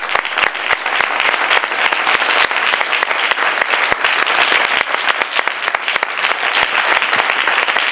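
An audience applauding: many hands clapping at once in a steady spread that holds without letting up.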